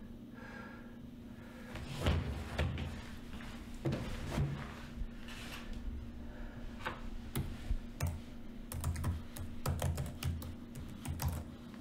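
Typing on a laptop keyboard: irregular runs of key clicks starting about two seconds in, over a low steady hum.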